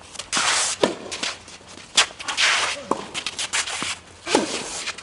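Tennis being played: players' footsteps and shoes scuffing and squeaking on the court, with one sharp racket-on-ball strike about two seconds in.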